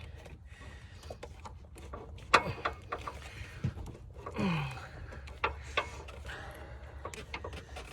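Scattered clicks, taps and light scrapes of hands working a hose clamp onto the upper radiator hose of a car engine, with one sharper click a little over two seconds in.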